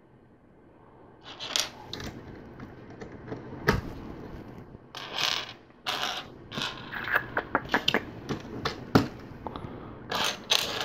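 LEGO bricks being handled and pressed together: a run of short, sharp plastic clicks and small clatters as pieces are picked up and snapped on, starting after a quiet first second.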